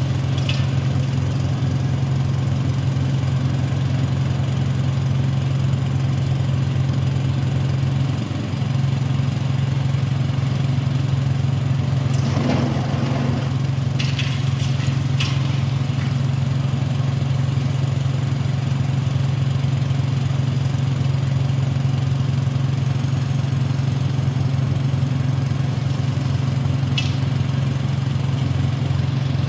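Diesel engine of a Caterpillar high-reach demolition excavator running steadily under load as its long boom works. A few brief knocks and a short crunching swell are heard past the middle and once near the end, as the jaw breaks into the concrete.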